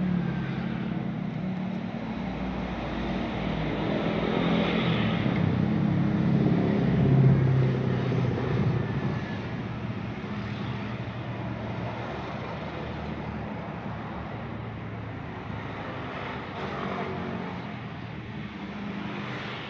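Motor vehicle engine running on the street outside. It grows louder to a peak about seven seconds in, then eases back to a steady traffic hum.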